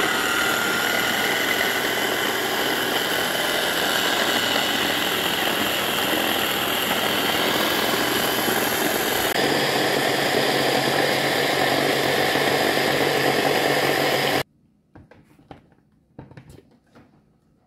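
Electric food chopper running steadily as it blends onion, tomato and sweet pepper chunks into a seasoning paste; its pitch shifts slightly about nine seconds in. The motor cuts off suddenly about fourteen seconds in, followed by a few faint clicks as the motor unit is handled.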